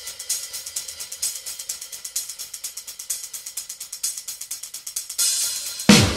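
Rock song intro: a fast, even hi-hat and cymbal pattern with little bass, swelling into a cymbal wash about five seconds in, then the full band with drums and bass guitar coming in loudly near the end.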